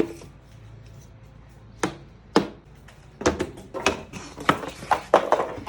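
Irregular knocks and clunks: a few spaced single knocks, then a quicker run of them in the second half.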